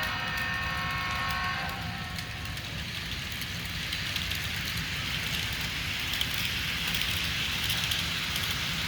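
An HO-scale Walthers ES44AC's DCC sound decoder sounds a multi-tone diesel air horn through its small speaker. The horn ends about two seconds in. The model train's wheels then roll on the track with a steady hiss and fine clicking over the low drone of the decoder's engine sound.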